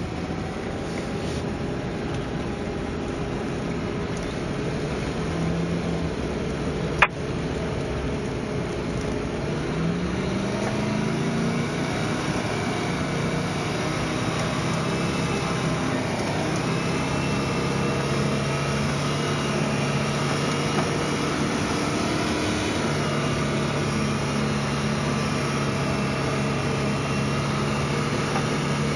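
Range Rover V8 engine running steadily while pulling on a tow strap through snow and mud ruts. The revs rise at about ten seconds in and then hold. There is a single sharp click at about seven seconds in.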